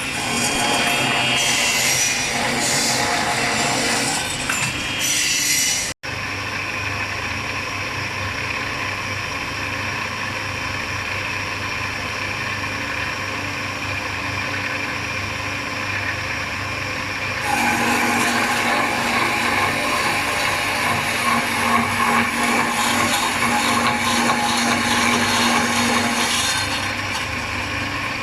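CNC aluminium cutting machine running with a sawing sound. It breaks off for an instant about six seconds in, then carries on, and about two-thirds of the way through it gets louder with a steady low hum that stops shortly before the end.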